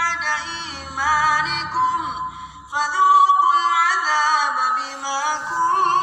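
A man's melodic Quran recitation in the taraweeh prayer, with long, ornamented held notes. The voice pauses briefly about two and a half seconds in, then resumes louder.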